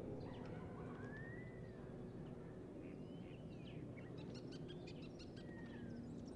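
Faint outdoor ambience: a low steady background noise with birds chirping, a few sliding whistled calls and a cluster of short high chirps in the middle.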